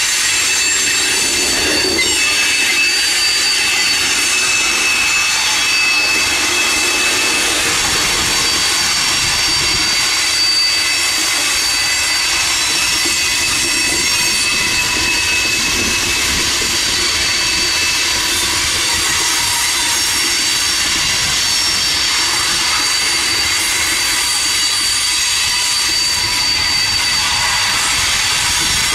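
Freight cars rolling past, steel wheels on rail giving a steady rumble, with several high squealing tones from the wheels held throughout.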